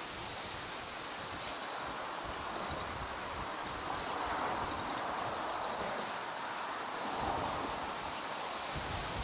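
Steady outdoor background noise, an even rustling hiss, with irregular low rumbles.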